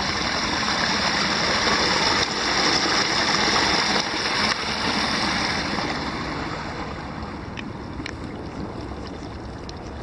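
Small waterfall on a stream, water tumbling over a low drop with a steady splashing rush that fades over the last few seconds.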